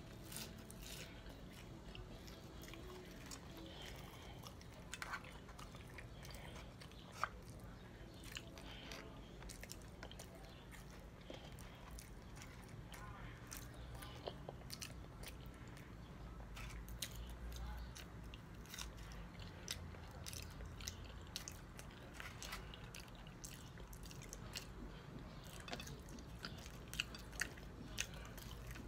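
A person chewing and crunching hard taco shells and fries close to the microphone, with many small scattered crunches and mouth clicks.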